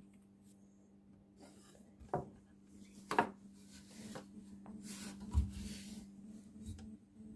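Rubbing and scraping handling noises, with sharp knocks about two, three and five seconds in, over a steady low hum.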